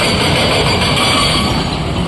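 Quarry machinery running together: excavator diesel engines working under load and a Hitachi excavator's hydraulic rock breaker hammering rapidly against stone.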